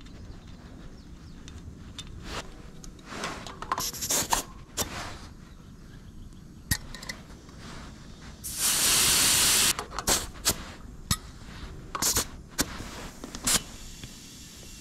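Small clicks and taps of handling at a motorcycle tyre's valve stem, then a steady hiss of air from the valve lasting about a second as a dial pressure gauge is pressed on. The hiss is the loudest sound.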